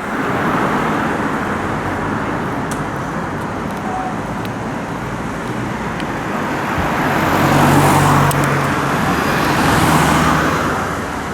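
Fire engine driving, with engine and road noise steady throughout; the engine note swells twice in the second half.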